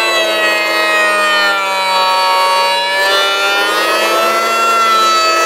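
Triton TPL180 1500 W three-blade power planer cutting across the grain of a glulam beam: a steady, loud motor whine whose pitch sags a little in the middle as the blades bite, then picks up again near the end.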